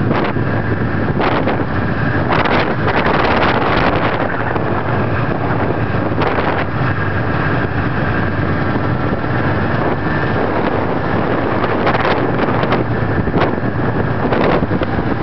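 Snowmobile engine running steadily while riding along at speed, heard close from the seat. Wind rushes over the microphone in uneven gusts.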